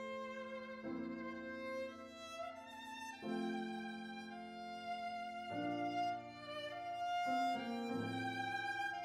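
A viola playing a slow melody of long, held bowed notes, with piano accompaniment whose chords change every two seconds or so.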